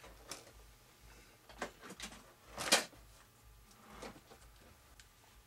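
Scattered small handling noises from getting epoxy ready: clicks, taps and rustles of containers and tools being picked up and set down, the sharpest about two and a half seconds in.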